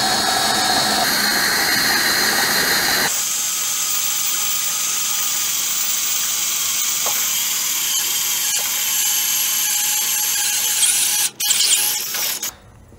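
DeWalt cordless drill running a step bit through sheet-steel cross member, cutting the hole out to 3/8 inch. The drill runs steadily, then near the end stops briefly, gives a few short bursts and stops.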